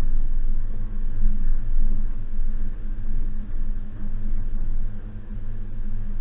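Suzuki Jimny's 1.5-litre four-cylinder petrol engine running at low, fairly steady revs while driving off-road, a low drone with rumble that wavers slightly in level.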